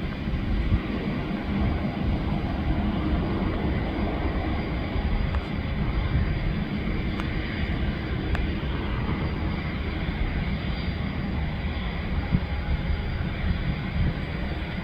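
Aircraft engine noise at an airport: a steady rumble with a hiss that swells slightly in the middle, as from a business jet moving nearby.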